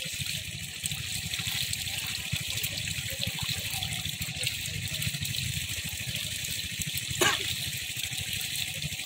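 Water gushing steadily through a gap in a mud bank and pouring down into a pit, with one sharp knock about seven seconds in.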